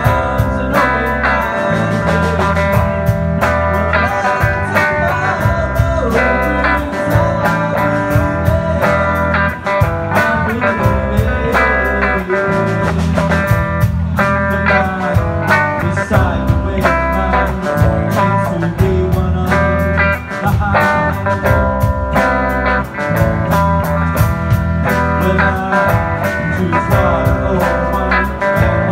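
Live rock band playing: acoustic and electric guitars, electric bass and drums, with a male singer singing the lead vocal.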